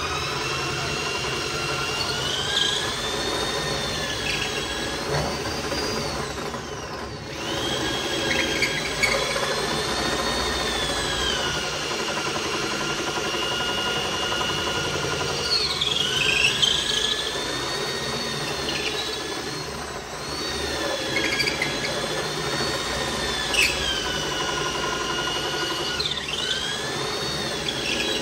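Corded electric drill boring into the end grain of a thick solid-hardwood slab, its motor whine sagging in pitch as the bit loads up and climbing back as it frees, about five times over.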